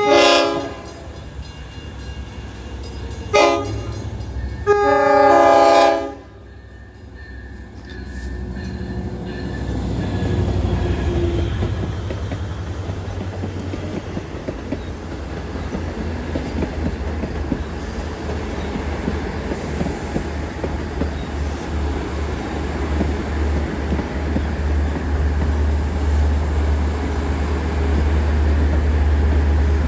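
A Long Island Rail Road train's horn sounds three blasts, a short one between two longer ones. Then the train's low rumble builds steadily as it approaches.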